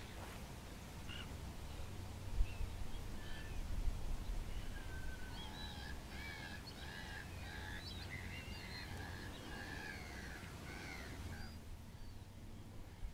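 A flock of gulls calling: a few scattered calls at first, then a busy chorus of short, overlapping calls through the middle that thins out near the end, over a steady low rumble.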